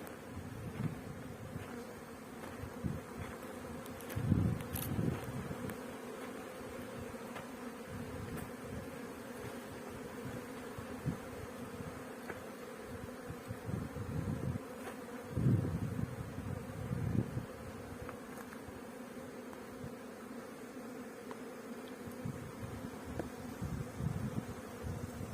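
Honeybees from the hives buzzing steadily in a constant hum, with a few brief, louder low bumps now and then.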